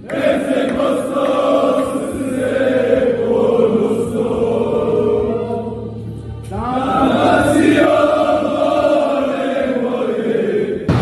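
A group of people singing and chanting together in unison, arms raised in celebration. One long sung phrase, a brief pause about six seconds in, then a new phrase starts.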